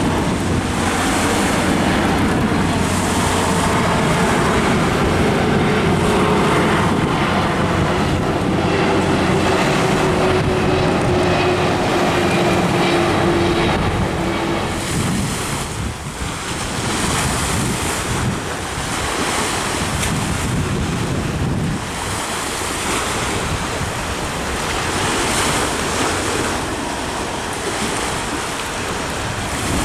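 Jet engines of a four-engine Boeing 747 freighter on landing approach, a steady rushing roar with an engine tone that slowly falls in pitch as it passes. About halfway through, the sound drops and changes to quieter rushing wind noise that comes in swells, with a more distant airliner.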